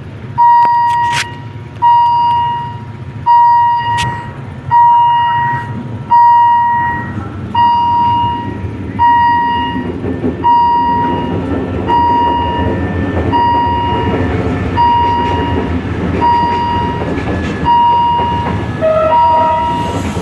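Railway level-crossing warning signal sounding a single ringing tone about once every 1.4 s, each stroke sharp then fading. From about halfway a low rumble grows underneath as the train approaches the crossing.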